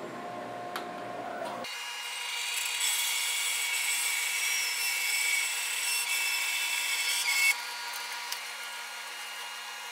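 Bandsaw running with its blade cutting lengthwise through a wet log pushed on a sled jig: a steady motor hum under a loud cutting hiss. About seven and a half seconds in the cut finishes, the hiss drops away and the saw runs on freely.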